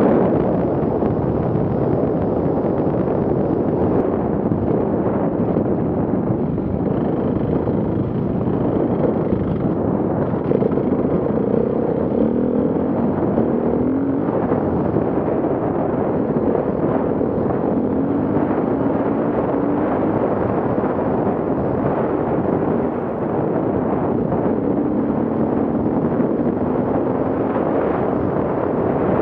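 KTM enduro motorcycle engine running hard at speed over a gravel and dirt track, revs climbing in short steps several times, mixed with wind rush on the rider's camera microphone.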